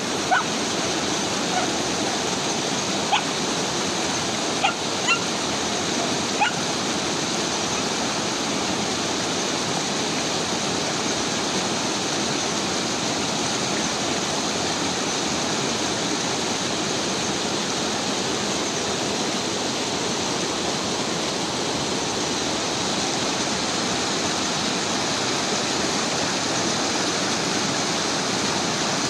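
Shallow river running steadily over stones. A German Shepherd puppy gives a handful of short, high yelps in the first six or seven seconds.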